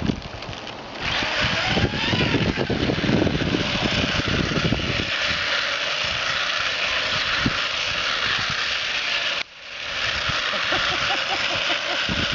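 Motor of a Tamiya four-wheel-drive remote-control truck running as it drives over icy, crusted snow, with a brief rising whine about two seconds in and the tyres and chassis rattling. It cuts out suddenly near the end for a moment, then starts up again.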